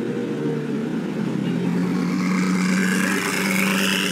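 Koenigsegg hypercar's V8 engine pulling away at low speed: a steady low engine note that grows stronger after about a second and a half, with a whine rising in pitch over the last couple of seconds.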